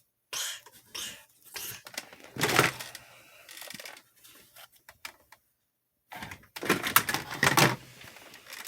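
Handling noise from toy weapons being picked up and moved about: scattered knocks, rattles and rustles, with a louder clatter about two and a half seconds in and a longer burst of clattering about seven seconds in, after a second of silence.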